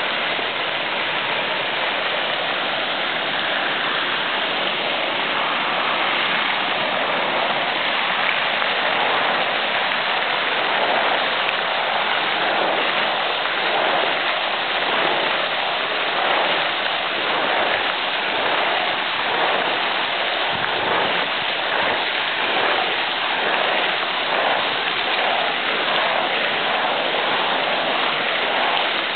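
Fountain jets splashing steadily into a basin: a constant hiss of falling water.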